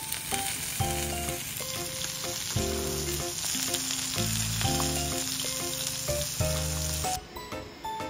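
Pork belly slices sizzling on a round grill pan over a portable gas burner, a steady crackling hiss that cuts off suddenly about seven seconds in.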